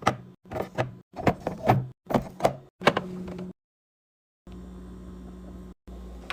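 Handling noises from restocking a fridge, cut into short snippets: sharp clacks and knocks as items are set in place, over a steady low hum. There are abrupt silences between the snippets and a second-long gap about midway.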